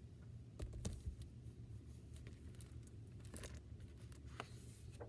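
A picture book being handled on a desk: a couple of soft knocks about a second in as it is set down, then its pages opened and smoothed with faint papery rustles and clicks.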